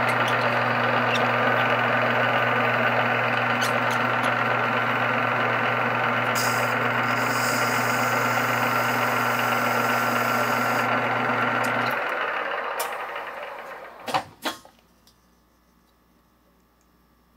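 A Jet metal lathe turning down a steel axle flange: a steady motor hum under a rough cutting noise. The steel is hard on the bits and may be lightly heat-treated chrome moly. About twelve seconds in, the lathe is switched off and spins down, followed by two sharp knocks.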